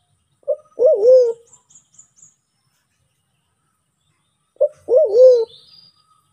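Sulawesi black pigeon (Turacoena manadensis) calling twice, about four seconds apart. Each call is a short note followed by a longer wavering low coo.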